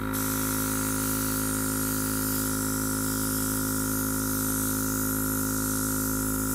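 Oasser battery-powered mini airbrush compressor running, a steady motor hum with several fixed tones, under the hiss of compressed air and water mist spraying from the airbrush nozzle. Both start abruptly, as the trigger is pressed, and then hold steady.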